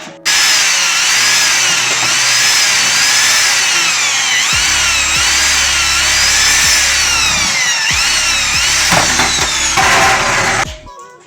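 Electric drill running, boring a drain hole through the bottom of a car's plastic tail light housing; its high whine rises and falls in pitch over and over, then cuts off near the end.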